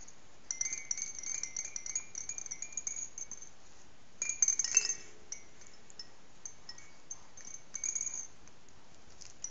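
A baby's hanging play-gym toy jingling with a tinkling bell-like sound as she grabs and shakes it. It comes in several bursts: a longer run of small jingles in the first few seconds, a brief louder one a little past the middle, and a short one near the end.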